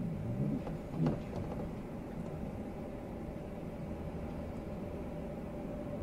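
Blizzard wind blowing as a steady low noise, with a howl that wavers up and down in pitch during the first second or so.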